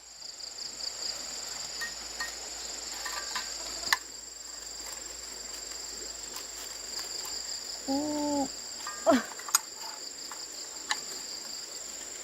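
Insects, crickets or cicadas, chirring in a steady high drone, with a few sharp clicks and a short pitched sound with a quick falling glide about eight seconds in.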